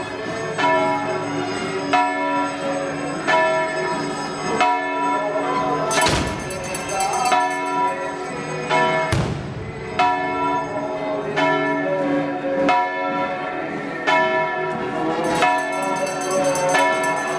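Church bells ringing, with fresh strikes about every second and a half and their tones hanging on between strikes. Two sharper bangs stand out about six and nine seconds in.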